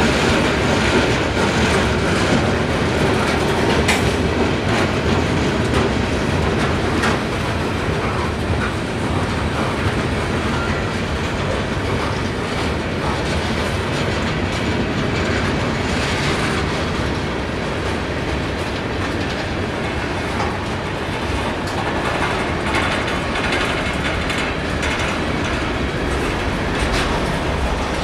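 Freight cars of Norfolk Southern train 192 rolling past at close range: a steady rumble of steel wheels on rail, with scattered sharp clicks and clunks as the wheels cross the rail joints.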